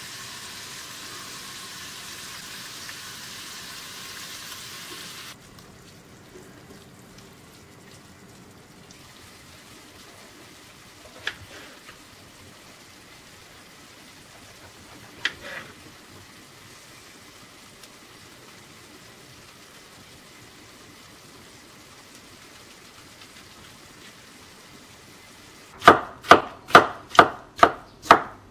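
A frying pan of onions sizzles steadily for about five seconds, then stops abruptly. Later come two single knife cuts through courgette, and near the end a kitchen knife chops peeled courgette on a wooden chopping board, about six quick strokes at roughly two a second, which are the loudest sounds.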